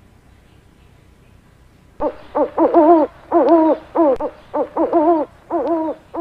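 Owl calling: after a quiet start, a run of about nine short hoots begins two seconds in, each one bending up and then dipping in pitch.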